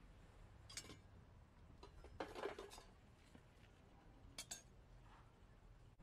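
Near silence broken by a few faint crackles and clinks from wood pellets burning in a small metal fire stand: one about a second in, a short cluster around two seconds, and a quick double click near four and a half seconds.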